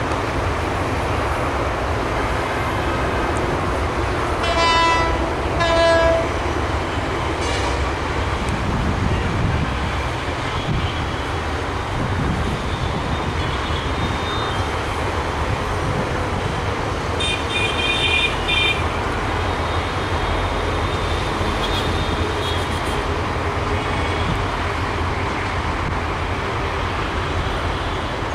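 Metre-gauge diesel express train running with a steady rumble, its horn sounding two short blasts about five seconds in. Later a briefer, higher-pitched tone sounds over the running noise.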